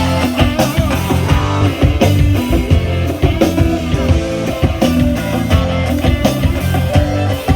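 Live rock band playing an instrumental passage: electric guitar, bass and drum kit, with no vocals.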